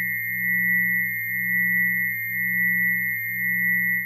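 Synthesized chord of steady sine tones made from the spectral lines of ionized nitrogen (Nitrogen VI), shifted down many octaves into hearing range. It has a low hum, a slightly higher tone that swells about once a second, a strong steady whistle-like tone and a faint very high tone. All of them cut off together at the very end.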